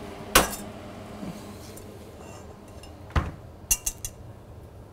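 Metal kitchenware being handled: a wire whisk and a stainless steel saucepan knocking and clinking. One sharp knock near the start, then another knock and a quick run of three or four clinks a little after three seconds.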